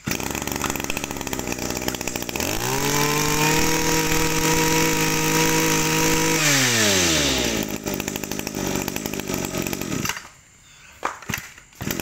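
Echo (Kioritz) 26cc two-stroke brush cutter engine running. It idles, revs up to full throttle about two and a half seconds in and holds there for about four seconds, then drops back to idle. It stops about ten seconds in, and a few sharp knocks follow near the end.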